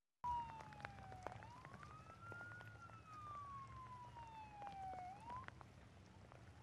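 An emergency vehicle's siren wailing, its pitch sliding down, rising slowly, then falling slowly and starting to rise again, with scattered clicks and low background noise beneath it. The sound cuts in just after the start and cuts out abruptly at the end, as in a stream dropout.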